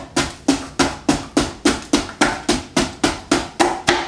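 A frozen block of sliced strawberries being jabbed and broken up with a wooden spoon inside a Vitamix blender jar: sharp knocks, about four a second, each with a short ringing.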